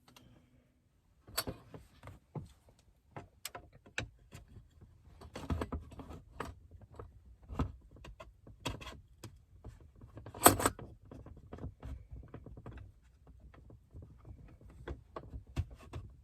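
Hard plastic parts of a center console lid being handled and pushed together: irregular clicks, taps and knocks, with one louder clack about ten seconds in.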